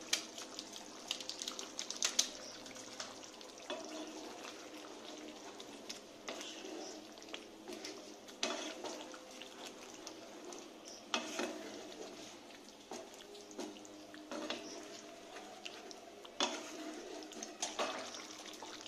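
Wooden spatula stirring a thick, wet potato curry in a metal pan, with squelching liquid sounds and a few sharp knocks and scrapes of the spatula against the pan.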